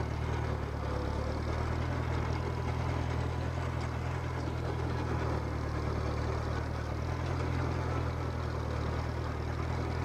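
Case 310 crawler bulldozer's engine running steadily at low throttle as the machine crawls along on its tracks.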